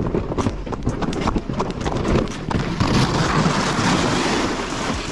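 Footsteps crunching through snow at a walking pace, close to the microphone, getting louder about halfway through.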